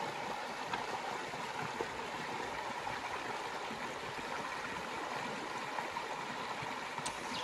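River water rushing over rocks: a steady, even rush of flowing water.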